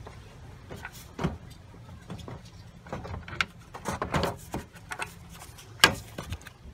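Radiator fan assembly being worked down into place against the radiator: scattered knocks, clicks and scrapes of plastic and metal, with one sharp knock near the end.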